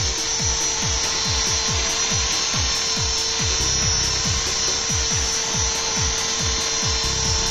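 Blue Ray 450-size electric RC helicopter hovering: a steady high whine from its electric motor and rotor, with a low pulsing beneath it, about three or four a second.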